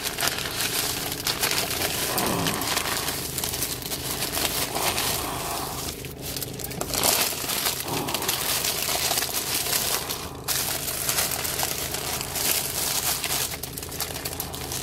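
Paper rustling and crinkling as a sandwich is pulled out of a white paper bag and its printed paper wrapper is unfolded by hand, with two short pauses partway through.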